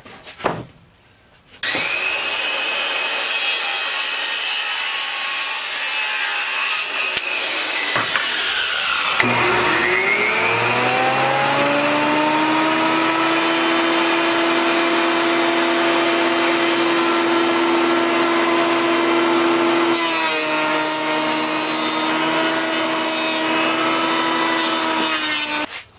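Benchtop jointer running and planing a rough red cedar board, a loud, steady motor whine with cutting noise. It starts about two seconds in. Around nine seconds in its pitch sags and then climbs back, and it cuts off suddenly near the end.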